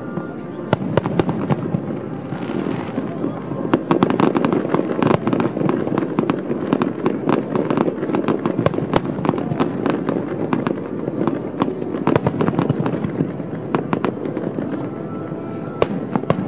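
Aerial fireworks shells bursting: a continuous rumble of booms laced with many sharp crackling pops, building up about four seconds in and staying dense.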